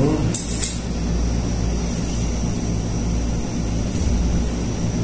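Steady low rumble, with short high clicks and scrapes about half a second in and again near two and four seconds as the sections of a Lixada telescopic fishing rod are pulled out and seated.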